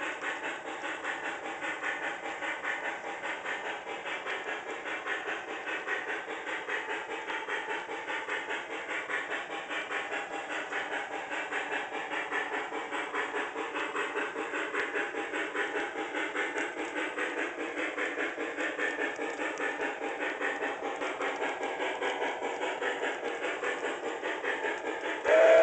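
Onboard sound system of an MTH HO-scale Pere Marquette 1225 2-8-4 Berkshire model steam locomotive playing steady, quick, even steam chuffing with hiss while the model runs.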